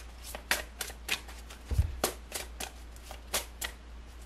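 Tarot cards being shuffled by hand, the deck passed between the hands in an overhand shuffle. It gives a string of short, crisp card slaps at an uneven pace of about two or three a second, with one dull low thump a little under two seconds in.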